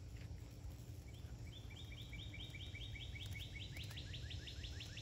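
A songbird singing a long trill of repeated slurred notes, starting about a second in and speeding up in its second half, over a steady low background rumble.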